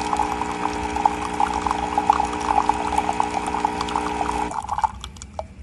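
KitchenAid KCG8433BM burr coffee grinder's motor running with a steady hum and a fast irregular crackle, cutting off about four and a half seconds in.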